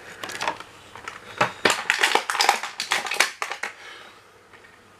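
Clear plastic blister packaging crinkling and crackling as a hand handles it: a dense run of crackles for about three and a half seconds, then dying away.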